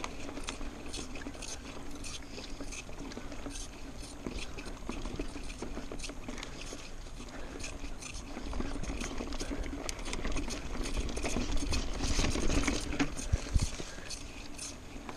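Mountain bike rolling fast down a dirt trail: steady tyre noise on the packed dirt and leaves, with the bike rattling and clicking over bumps. It gets louder and rougher around the middle and second half.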